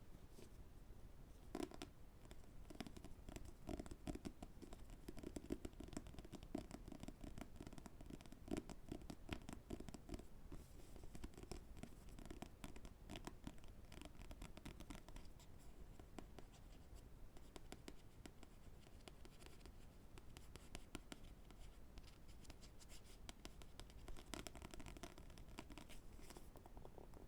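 Quiet fingertip and fingernail tapping and scratching on books: a dense run of light taps and scrapes, busiest in the first half and again near the end.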